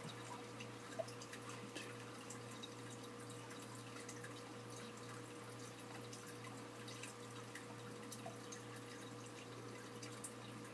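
Stylus tapping digits on the LG Incite CT810's touchscreen keypad: faint, irregular ticks, the clearest about a second in, over a steady low hum.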